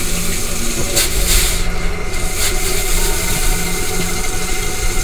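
Shower head spraying steadily, a continuous rush of water with a low steady hum beneath it.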